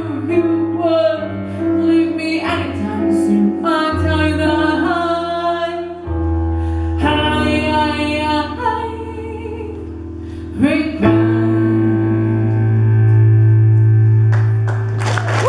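A woman singing to her own keyboard accompaniment; the song ends on a long held chord from about two-thirds of the way through, and applause begins right at the end.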